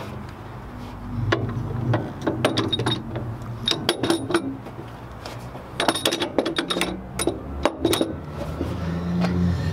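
Metal clinking and knocking as a coilover is worked up into a car's front wheel well and its top studs are fed into the strut tower, in several quick clusters of sharp clicks.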